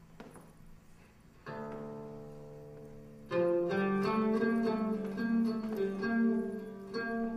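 Music from a plucked string instrument over a steady low drone. A soft note rings out about a second and a half in, then a louder, quick run of repeated plucked notes starts about halfway through.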